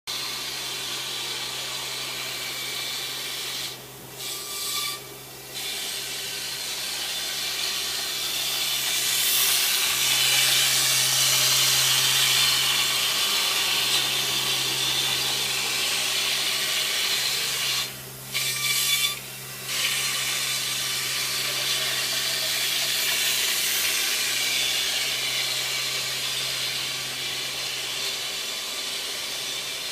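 A Dynamic FS10 CNC milling machine's cutter milling expanded polystyrene (EPS) foam: a steady hissing, rasping cut over a low spindle hum. About 4 s in and again about 18 s in, the cutting noise drops away twice for a moment, leaving a thin whine.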